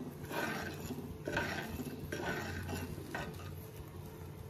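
Metal spoon stirring red lentils, water and turmeric in an earthenware pot, a scraping swish about once a second.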